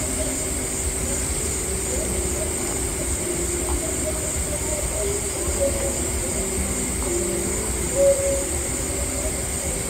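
Steady night-time outdoor ambience: a constant high insect drone over a low rumble, with short faint low calls scattered through.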